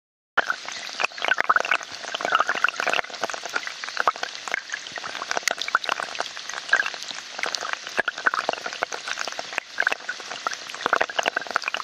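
Storm water rushing along a flooded gutter with heavy rain splashing into it: a dense crackling splatter, starting abruptly about half a second in.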